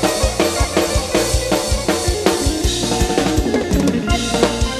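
Lam sing band music: a drum kit playing a fast, steady beat of about four strokes a second, with bass and melodic instrument lines over it.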